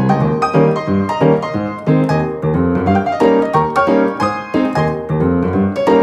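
Background piano music, a steady run of quickly struck notes with chords beneath.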